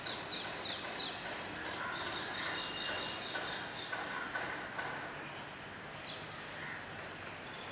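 Small birds calling: a quick run of short, falling high chirps, about three a second, in the first second, then a busier spell of high, thin twittering notes, and one more falling chirp about six seconds in.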